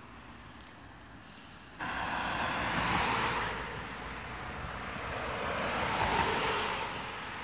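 Road traffic passing: a hiss of car tyres and engines that comes in suddenly about two seconds in and swells twice as vehicles go by.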